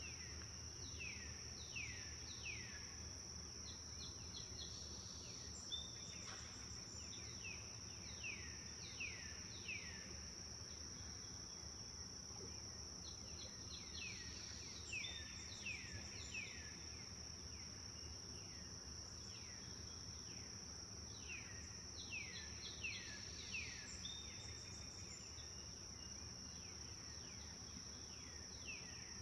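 A songbird singing phrases of quick downward-slurred whistled notes, each phrase a run of several falling notes, repeating every several seconds. Under it runs an unbroken high steady insect drone of crickets or cicadas.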